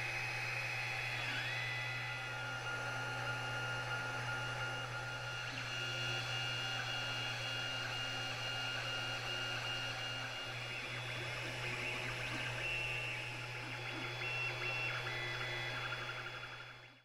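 Creality Ender 2 3D printer printing: its stepper motors whine in steady tones that jump and dip to new pitches as the head and bed change moves, over a constant low hum. The sound fades out near the end.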